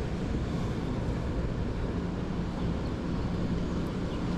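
Steady low rumble with a wavering hum that fades in and out.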